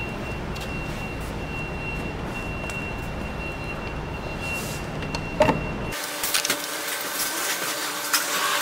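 Steady mechanical hum with a thin high-pitched whine over it, which cuts off suddenly about six seconds in. A hissing noise with scattered clicks follows.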